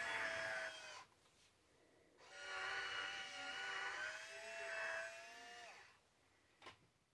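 Battery-powered electric wine opener's motor whirring with a steady whine, stopping about a second in, then running again for about three and a half seconds and winding down. A single short click near the end.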